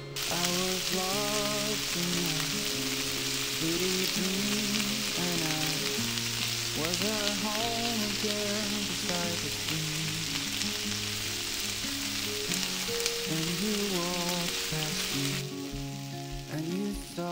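Corn kernels frying in butter in a pan, a steady sizzle that cuts off about fifteen seconds in, over background music.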